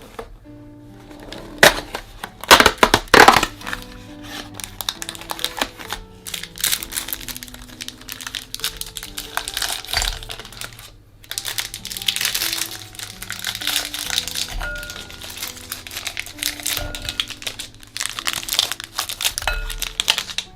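Biscuits being crushed inside a plastic bag: a few loud cracking snaps in the first seconds, then repeated crinkling and crunching, over background music.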